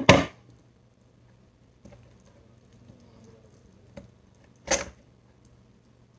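Knife cutting and scraping raw chicken wings to shape them into lollipops: a short scraping sound at the start and another near the end, with faint clicks of handling between.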